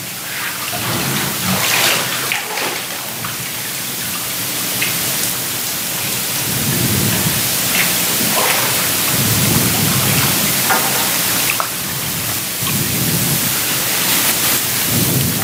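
Water in a church baptistry pool splashing and sloshing steadily as people wade and move through it, a dense rain-like wash of noise with a few soft low swells.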